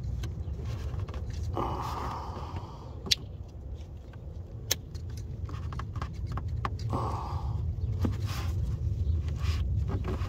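Hands working a plastic electrical connector loose: a few sharp plastic clicks and short scraping rustles, over a steady low hum.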